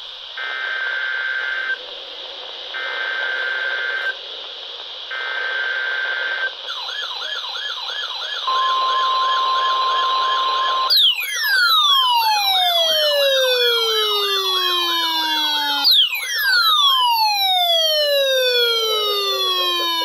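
Midland NOAA weather radio sounding an Emergency Alert System required weekly test: three short bursts of data tones, then a warbling alert tone joined by a steady tone. From about 11 seconds in, a loud siren with long falling sweeps takes over, repeating.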